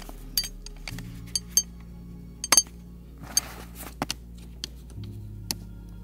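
Sharp clicks and light clinks of a folding camp table being put together, its mesh top fitted onto the metal frame: about a dozen irregular clicks, the loudest a quick double about two and a half seconds in. Soft background music runs underneath.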